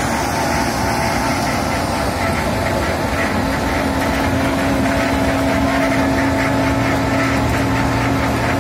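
Wirtgen W 100 H cold milling machine at work: its diesel engine runs steadily under load while the milling drum grinds off the asphalt road surface.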